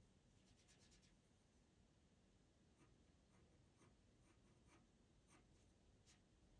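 Faint scratching of a pastel pencil making short strokes on Pastelmat paper. A quick run of strokes comes about half a second in, then single strokes follow every half second or so.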